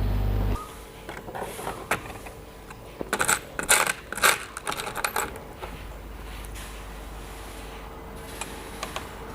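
A steady low electrical hum cuts off suddenly about half a second in, then small metal parts and tools clink and clatter on the workbench, loudest in a cluster around three to four seconds in, trailing off into scattered clicks.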